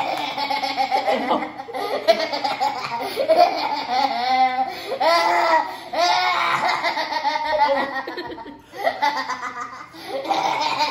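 Two young boys laughing hard in long fits of belly laughter, with a short lull about eight and a half seconds in.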